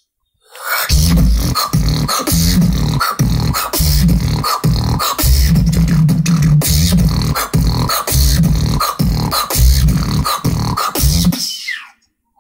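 Beatboxer's vocal percussion: a fast, dense beat of deep bass and sharp clicks and snares, starting about a second in and stopping just before the end.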